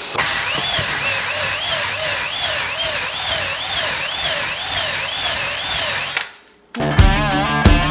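Power drill spinning a ball-type honing brush inside a two-stroke YZ250 cylinder, its pitch wavering up and down about twice a second. It is cleaning the Nikasil-plated bore without taking metal off. The drill stops about six seconds in, and rock music starts near the end.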